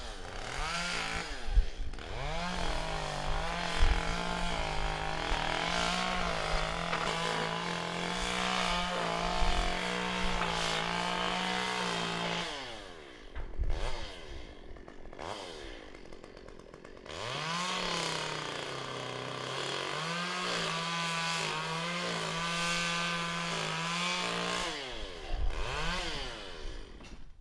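A small engine revs up and runs at a steady high speed for about ten seconds, then drops back. After a lull of a few seconds it revs up again, runs for about seven seconds and falls away.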